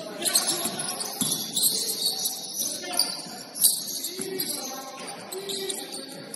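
Basketball game in a gym: sneakers squeaking on the court, with several sharp thumps of the ball, the loudest about three and a half seconds in.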